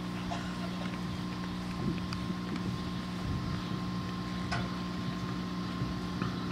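A steady low hum made of several held tones, with a fainter high tone above it and a few faint clicks.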